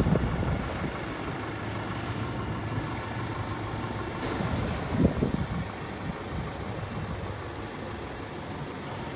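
Dongfeng compactor garbage truck's diesel engine idling steadily, with a brief louder low rumble at the start and again about five seconds in.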